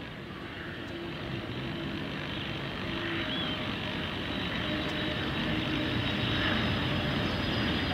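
Cessna Citation 525A business jet's twin turbofan engines during touchdown and landing rollout: a steady jet rush that grows louder as the aircraft comes nearer, with a faint high whine.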